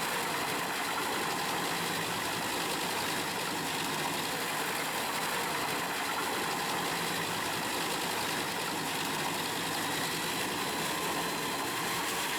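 Truck-mounted drum wood chipper running steadily: an even mechanical engine drone with no separate knocks or bangs.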